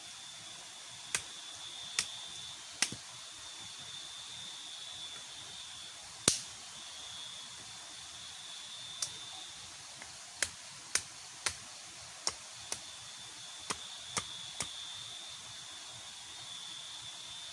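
A steady, high trill of night insects, with about fourteen sharp clicks and taps scattered irregularly through it, the loudest about six seconds in.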